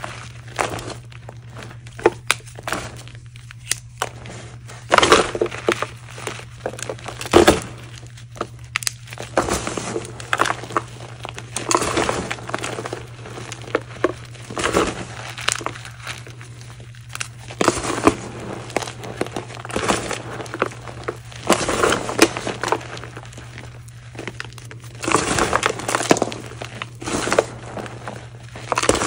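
Hands squeezing and crushing dried, hardened reforms that have gone very crunchy with age: irregular bursts of crunching and crumbling as the dry chunks break and grind into powder, every one to three seconds.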